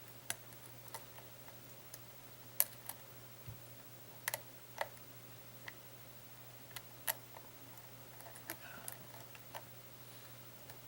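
Lock pick working the pins of a pin tumbler lock: irregular light, sharp clicks and ticks, a few louder ones around the middle, over a faint steady hum.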